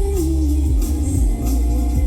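Live band music: a singer holds one long note that slides down early on, over heavy bass and drums keeping a steady beat.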